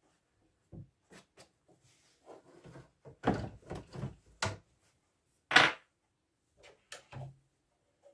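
Hand-handling sounds at an idle embroidery machine: scattered clicks, knocks and short rustles as the denim in the hoop is worked and folded back. The loudest is a brief knock about five and a half seconds in.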